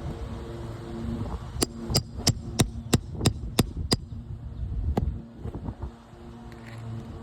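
Roofing hammer striking a nail puller to drive it under a shingle nail: eight sharp metallic taps about three a second, then one more a second later. A steady low hum runs underneath.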